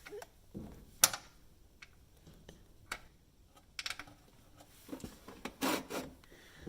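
A few sharp metallic clicks and taps, one about a second in and a cluster near the end, from a 6 mm Allen wrench working the oil drain plug under the vehicle.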